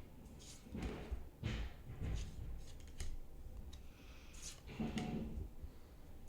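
Pokémon trading cards being handled and slid past one another, a string of short, irregular rustles and light clicks.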